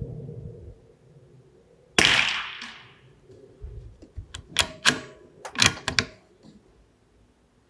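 A single suppressed shot from a .22 LR rifle fitted with an A-TEC suppressor, firing subsonic SK Standard Plus ammunition (327 m/s): one sharp report about two seconds in that rings out for about a second. A second or so later comes a quick run of sharp metallic clicks as the rifle's bolt is worked to eject the case and chamber the next round.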